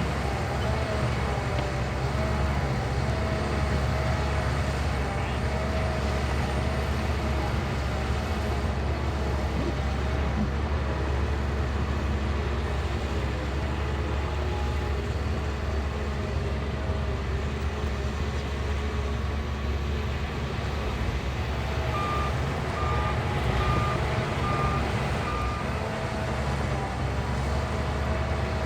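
Shantui bulldozer's diesel engine running steadily at work, with a wavering mid-pitched whine over the low hum. About two-thirds of the way through, a reversing alarm beeps six times, about two beeps a second.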